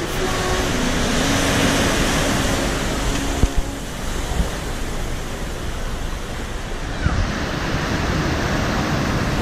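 Surf washing in a sea cave, a steady rushing that swells and eases, with two short knocks about three and a half seconds in.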